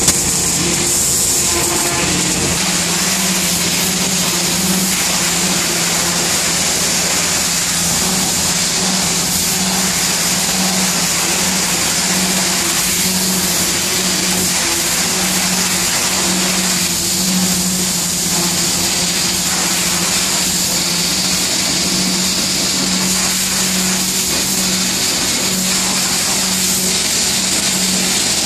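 Hot-water pressure washer jet spraying a concrete sidewalk: a loud, steady hiss. Underneath runs the steady drone of the truck-mounted washer's engine and pump, which shifts to a higher hum about two and a half seconds in.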